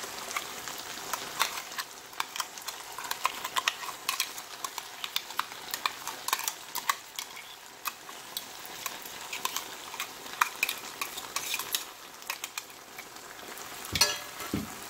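Vegetables sizzling gently in a pan on the stove, while a metal spoon scrapes and taps inside a small steel bowl to tip out ground coconut paste, giving many small clicks. A louder knock near the end.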